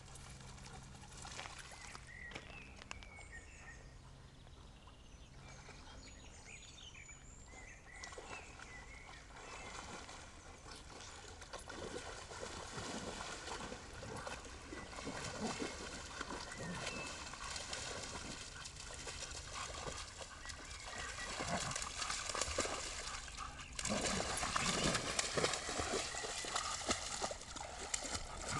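Dogs splashing and paddling about in lake water: irregular sloshing and thuds, busier in the second half and loudest near the end.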